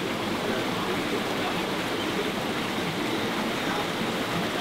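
Steady rushing of flowing stream water, an even, unbroken noise.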